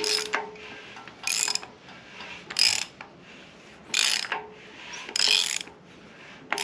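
Ratchet wrench on the crankshaft pulley bolt, clicking in five short bursts about a second apart as the crank of a Honda G23 engine is turned by hand to bring the number one piston up to top dead center.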